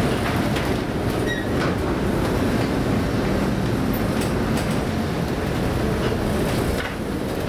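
Steady low rumble of a rescue vessel's engines and hull working through heavy storm seas, heard inside the wheelhouse, with a few brief knocks or rattles.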